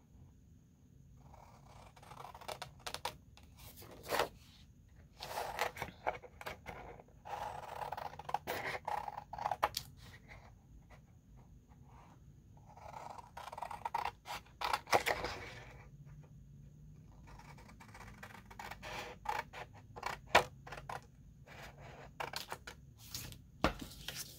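Sheets of printed paper rustling and sliding over each other on a table as they are handled, in several spells of a few seconds with sharp paper clicks, and scissors at the paper near the end.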